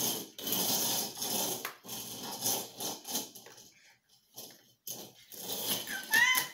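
Eraser scrubbing back and forth on a chalkboard, in repeated rough rubbing bursts with short pauses between them. A child's brief vocal sound comes near the end.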